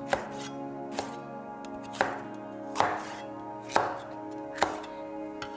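Chinese cleaver chopping capsicum on a wooden chopping board: six slow, even strokes about a second apart.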